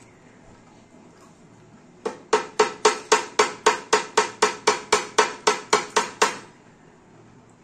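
A goat trotter bone rapped repeatedly on a stainless steel plate: about sixteen sharp, ringing metallic taps at roughly four a second, starting about two seconds in and stopping just after six seconds.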